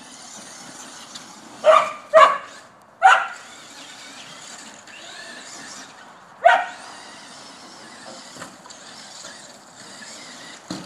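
Border collie barking: three short, sharp barks in quick succession about two seconds in, then a single bark a few seconds later. Between the barks the electric R/C car's motor whines faintly as it speeds up and slows down.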